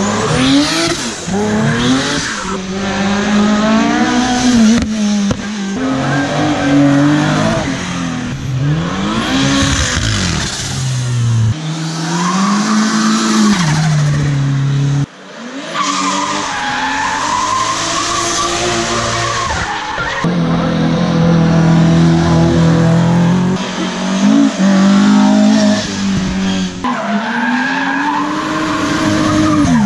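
Classic cars driven hard up a tarmac hill-climb, one after another, engines revving up and down through the gears with tyres squealing as they slide through the bend.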